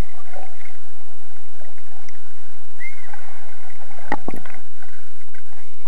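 Muffled underwater water noise, heard through a submerged camera, as a child in armbands splashes and swims toward it. A couple of sharp knocks come a little past four seconds in.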